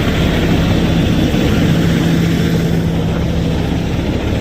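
Heavy truck engine running steadily under way, a constant low drone over road noise.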